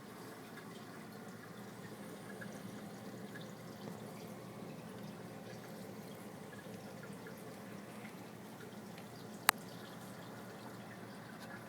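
Steady trickling and dripping of aquarium water, with a single sharp, loud snap near the end: the claw snap of a tiger pistol shrimp.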